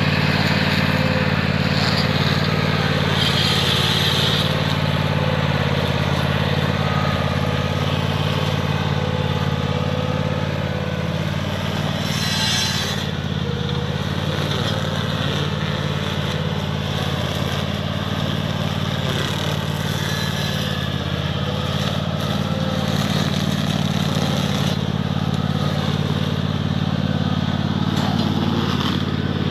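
Riding lawnmower's engine running steadily while mowing, with a brief hissy swish about 3 seconds in and another about 12 seconds in.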